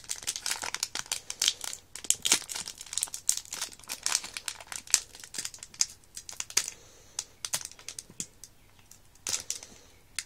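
Sealed foil wrapper of a trading-card pack crinkling and crackling as fingers pull at its seal to tear it open: a dense run of crackles with a quieter lull about two-thirds of the way through.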